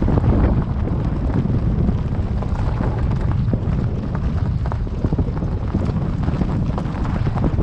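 Strong wind blowing on the microphone: a loud, dense low noise whose level keeps rising and falling with the gusts.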